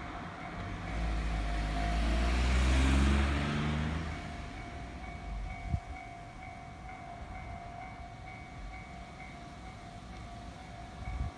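A JR 719-series electric train passing over a level crossing: a loud rumble peaking two to three seconds in, with a whine falling in pitch, then fading away. The crossing's warning bell keeps ringing in a steady repeating pattern throughout, and there is one sharp click about six seconds in.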